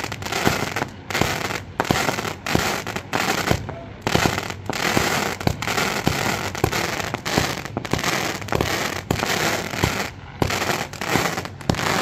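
Fireworks of a burning torito going off in a dense barrage of sharp bangs and crackling, several bangs a second, with brief lulls about four seconds in and near ten seconds in.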